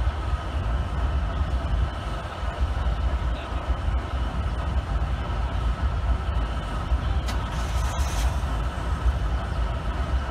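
Diesel freight locomotive running as it pulls a train slowly through a rail yard, a steady low rumble heard at a distance, with a brief hiss about seven seconds in.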